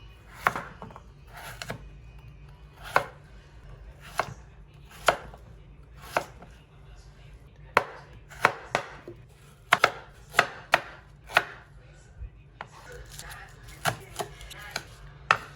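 Kitchen knife chopping ingredients on a cutting board in separate sharp strokes. The strokes come about a second apart at first, then quicker and less even from about halfway through.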